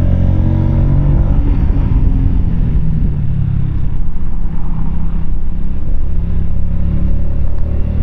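Keeway K-Light 125's small air-cooled V-twin engine running under way, heard from the rider's seat; the engine note blurs for a couple of seconds in the middle, then settles again.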